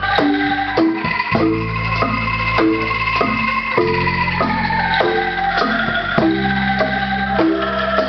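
Live band music on bamboo instruments (angklung and a bamboo xylophone) with bass guitar and drums: a steady beat of struck, ringing notes about every half second over sustained low bass notes.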